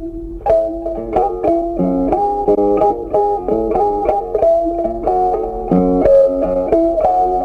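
Background music: a plucked guitar playing a quick, busy melody.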